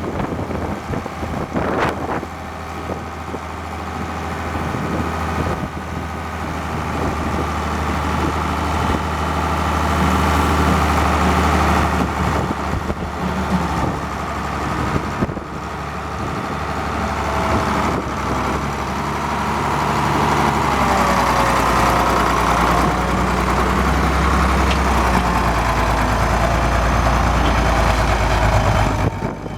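International 966 Hydro tractor's six-cylinder diesel engine running, its loudness slowly building and easing as it works. In the second half a whine rises and falls in pitch over the engine.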